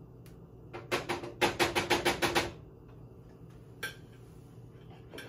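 A metal cooking utensil rapped quickly about ten times against the rim of a pan, each strike ringing; one more single clack follows a couple of seconds later.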